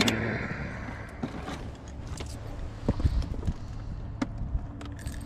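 Scattered light knocks and clicks from handling a fishing rod and tackle in a canoe, with a brief louder scuffle at the start, over a steady low rumble.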